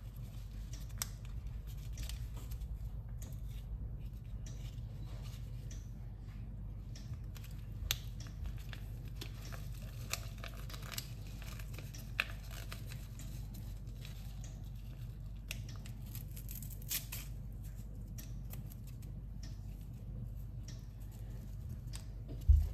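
Packaging being handled, cut and torn: scattered small crinkles and clicks over a steady low hum, with a sharp knock at the very end.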